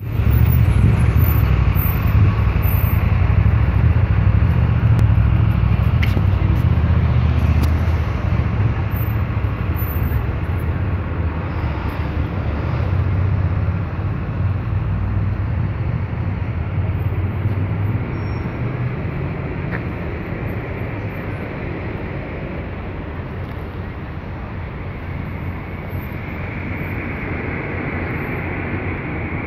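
Steady low rumble of city traffic noise, loudest over the first eight seconds and slowly easing off.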